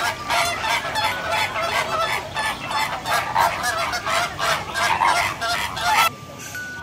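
A flock of flamingos honking, many calls overlapping in a dense, rapid chorus that stops abruptly about six seconds in.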